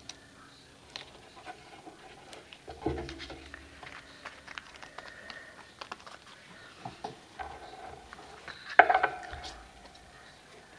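Paper and card being handled on a tabletop: small rustles, taps and clicks, a knock about three seconds in, and a louder paper rustle near the end.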